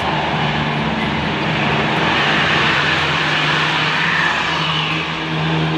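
Large diesel coach bus driving past close by on a tight bend: a steady engine drone under loud road and tyre noise.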